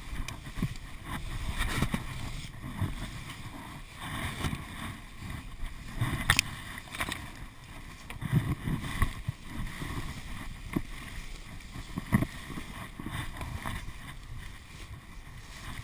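Irregular rustling and scuffing of long grass as a fallen KTM 250 EXC enduro bike is heaved and dragged on a slope, with a couple of sharp knocks from the bike being handled.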